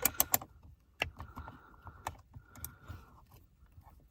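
Clicks and light scraping of a hand tool working at a small Torx bolt in a car's dashboard trim. It starts with a quick cluster of sharp clicks, then single clicks come every second or so over a faint scratchy rasp.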